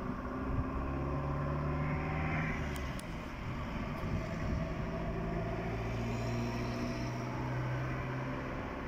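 A vehicle engine running with a steady low hum, its pitch shifting slightly a few times.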